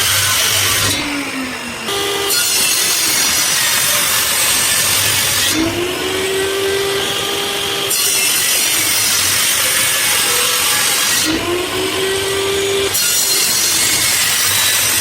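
Power saw cutting wood in repeated passes. Between cuts the blade spins free with a steady whine, three times, before the cutting noise returns.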